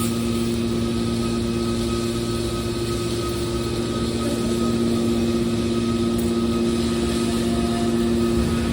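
Mobile car baler's engine-driven power unit running steadily: a constant machine hum with a steady whine over it.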